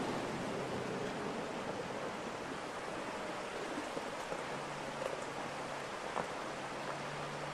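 Shallow river rushing over stones, a steady even wash of water. From about halfway a faint low engine hum joins it as the Jeep drives through the water.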